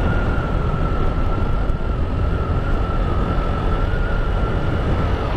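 Motorcycle riding along at a steady speed: engine running with a thin, steady high whine over heavy wind rumble on the microphone.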